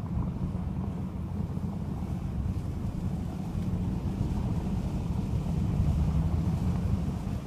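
Blizzard wind buffeting the microphone: a steady, fluctuating low rumble with no distinct tones.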